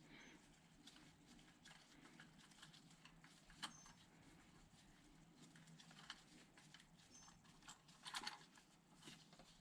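Near silence with a few faint sharp clicks and, about eight seconds in, a short rattle: hand tools and metal parts being handled while the belt tensioner is unbolted.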